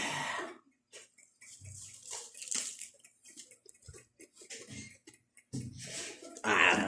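Close-up wet chewing and crunching of fresh raw chili leaves, irregular mouth clicks and smacks, with a louder burst near the end.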